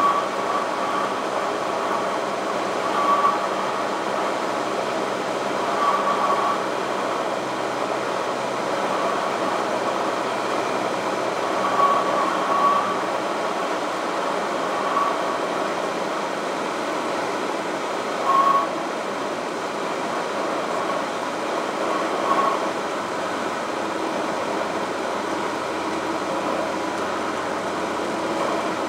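Light single-engine propeller plane's engine and propeller droning steadily, heard inside the cabin on final approach. Several short, high-pitched tone blips cut in at irregular moments.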